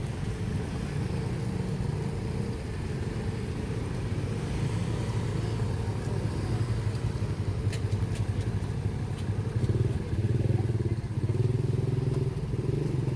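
Motorbike traffic passing on a city street, engine noise swelling louder about ten seconds in, with a few sharp clicks near the middle.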